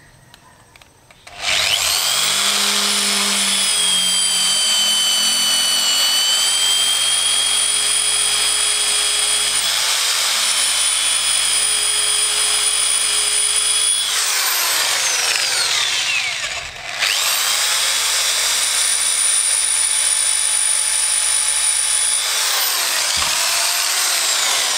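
Electric hand drill boring into a broken steel brake-disc bolt on a motorcycle wheel, enlarging the hole to drill the snapped bolt out. It starts about a second in and runs steadily with a high whine, drops out briefly past the middle and starts again, then winds down with falling pitch near the end.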